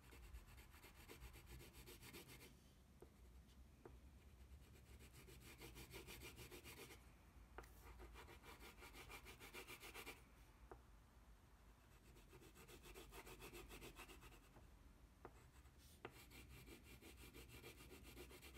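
Faint, quick back-and-forth scratching of a wax crayon shading across paper, with a few small taps along the way.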